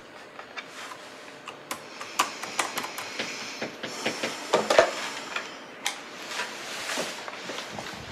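Typing on a laptop keyboard: quick, irregular key clicks, with a louder clatter of clicks about halfway through.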